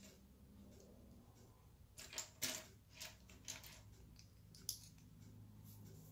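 Faint clicks of plastic LEGO bricks as pieces are picked from a loose pile and pressed together, about half a dozen scattered clicks, most between two and five seconds in.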